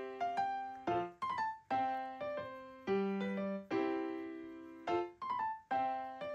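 Background music: a slow piano-like keyboard tune, its notes and chords struck about once a second and left to fade.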